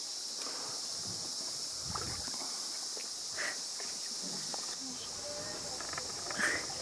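Steady, high-pitched insect chorus droning without a break, with a few faint knocks.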